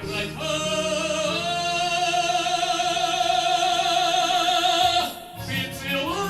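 A Russian song performed live with accompaniment: a singer holds one long note with vibrato for about four seconds, breaks off about five seconds in, and starts a new rising phrase near the end.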